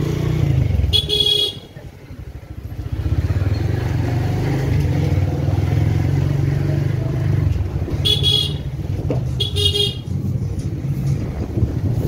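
Small motorcycle engine running at low speed, easing off briefly after about two seconds and then picking up again. The horn beeps three short times: once near the start and twice in quick succession about eight seconds in.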